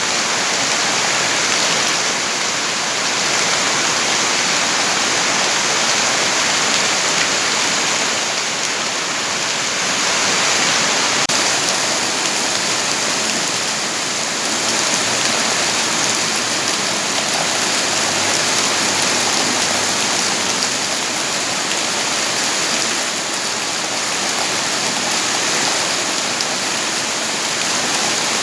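Steady rain falling, a dense, even hiss with no separate drops standing out, swelling and easing slightly.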